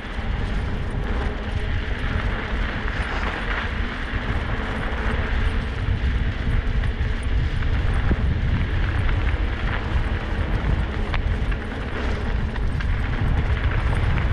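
Kickbike Fat Max kick scooter's fat tyres rolling over packed snow and ice at speed, with a steady rumble of wind on the microphone.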